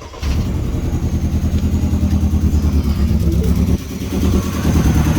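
Mini Cooper's four-cylinder petrol engine starting and running with an uneven, pulsing idle, misfiring on one cylinder. About four seconds in the running dips briefly and then picks back up.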